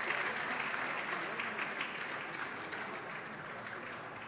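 Audience applauding after a point, the clapping dying away gradually.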